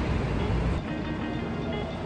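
Background music with a steady low rumble of noise beneath it.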